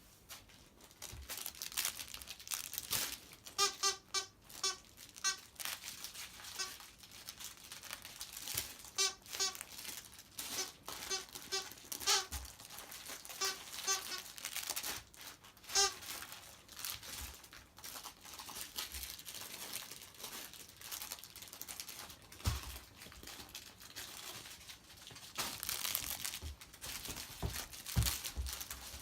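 Squeaky pet toy being squeezed in quick runs of short, high squeaks, with crinkling and tearing sounds between the runs.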